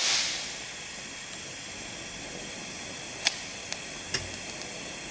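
TIG welding arc from a Unimig Razor 200 AC/DC welder hissing steadily on thin stainless steel sheet, louder for the first second and then settling, with a few faint ticks about three to four seconds in.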